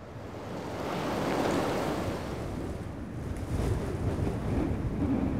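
Rushing, wind-like noise that swells about a second in, eases, then gives way to a building low rumble; no clear tones or rhythm.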